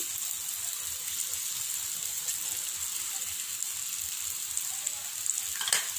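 Pan of onions and tempering frying on the gas stove, a steady sizzling hiss, as crumbled boiled raw plantain is dropped in.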